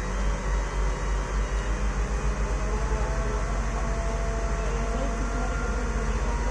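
Heavy diesel engine of construction machinery running under load, its low throb speeding up over the first couple of seconds and then holding steady.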